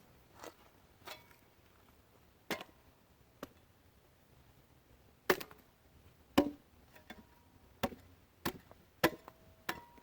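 A hand tool striking and prying at a black walnut log, knocking the bark off in irregular sharp knocks that come closer together from about halfway, some with a brief metallic ring.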